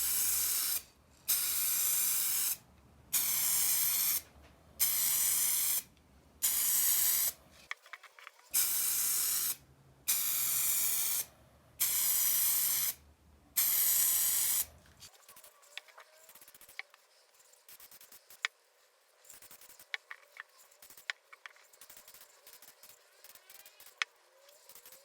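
Aerosol rattle can of colour-matched base coat paint spraying in about nine short hissing bursts, each about a second long, as a thicker coat is laid on. About fifteen seconds in the spraying stops, and only faint scattered ticks follow.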